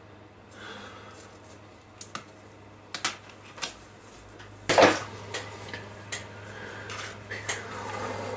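Scattered clicks and light clattering knocks as a model tank's track run and painting tools are handled and set down on a cardboard-covered work surface, the loudest knock just past halfway.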